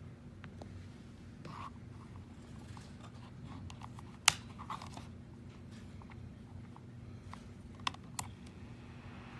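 A few sharp clicks of buttons being pressed on a plug-in wall space heater's control panel, the loudest about four seconds in and two in quick succession near the end, over a low steady hum; the buttons are being tried while the heater shows error codes and won't change temperature.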